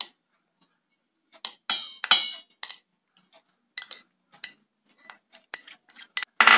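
Metal spoon scraping and tapping against a glass bowl while grated coconut is spooned out into a steel bowl: a series of irregular clinks, a couple ringing briefly about two seconds in, with a louder clink near the end.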